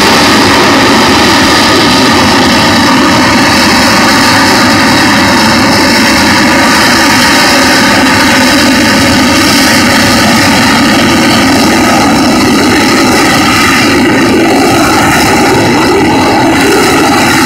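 AV-8B Harrier jump jet's Pegasus turbofan running very loud and steady low overhead: a harsh jet noise with several high whining tones held throughout.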